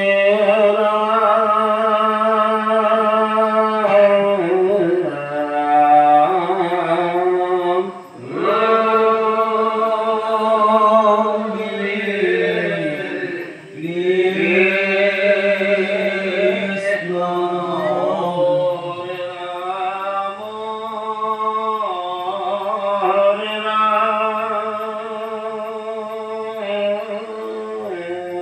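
Devotional naam chanting: voices singing long, drawn-out phrases, each note held for several seconds. There are short breaks between phrases about 8 and 13.5 seconds in.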